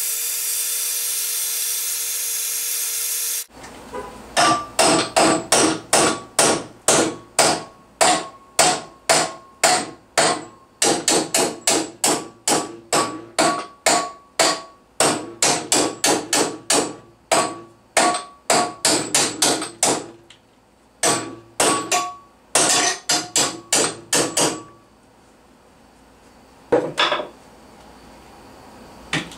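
Hammer striking a heated steel rod to bend it: ringing metal-on-metal blows, about two a second, in several runs with short pauses, stopping about 25 seconds in, with one more blow a little later. A steady hiss cuts off sharply just before the hammering starts.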